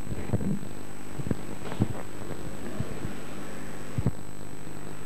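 Irregular dull thumps, a few in the first two seconds and a pair about four seconds in, of karateka's feet stepping and stamping on the floor during basic kihon drills, over a steady hum.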